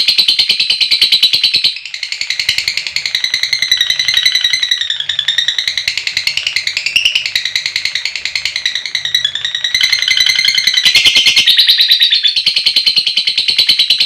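Lovebird 'ngekek' song: a long, loud, rapid chattering trill of many short high notes a second, running on without a break while its pitch wavers up and down.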